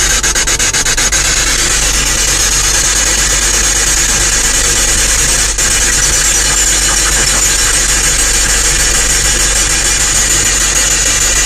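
Ghost box, a radio sweeping across stations, giving a loud, steady hiss of static, with rapid ticking in the first second or so and a single click about halfway through.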